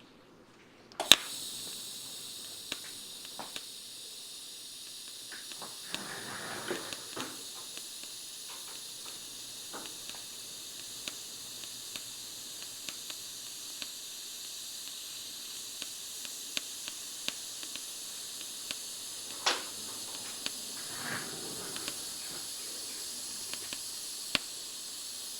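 TIG welding arc on a motorcycle fuel tank seam: a sharp crack as the arc strikes about a second in, then a steady high hiss with scattered small ticks and pops.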